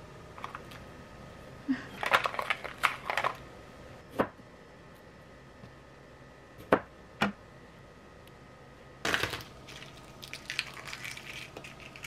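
Food-prep handling at a kitchen counter: a fork scraping and clinking shredded carrot out of a plastic container into a bowl, then a few single knocks as cherry tomatoes and utensils are set down. Near the end comes a run of fine crackling as the shell of a cooked egg is cracked and peeled.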